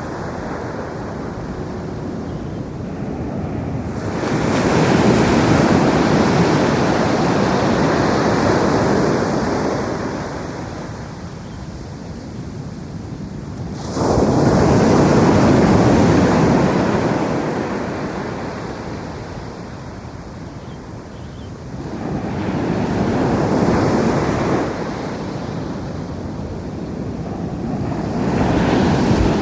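Ocean surf breaking on a beach: four waves crash in turn, each arriving suddenly and washing out over several seconds, with a steady hiss of water between them.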